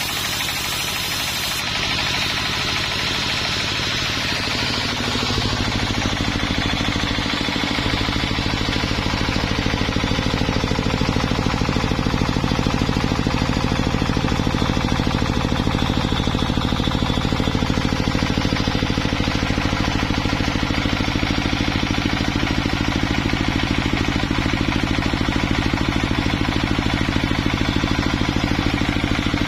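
Engine-driven sawmill machinery running steadily, growing a little louder and fuller about five seconds in.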